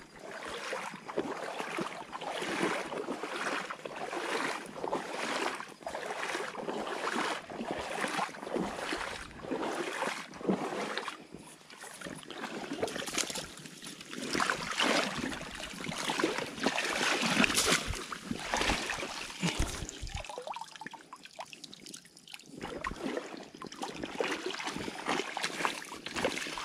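Legs in rubber waders wading through shallow tidal water: repeated sloshing and splashing, a stride every second or so.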